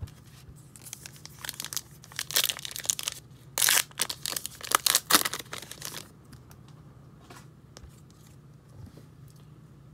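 A foil trading-card pack wrapper from 2020 Topps Gypsy Queen baseball being torn open and crinkled, in a run of crackling tears that is loudest around four and five seconds in. After about six seconds it dies down to faint handling of the stack of cards.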